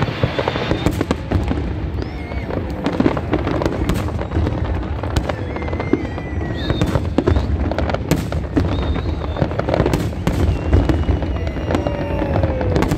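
Aerial fireworks display: a dense, continuous barrage of shell bursts, bangs and crackles.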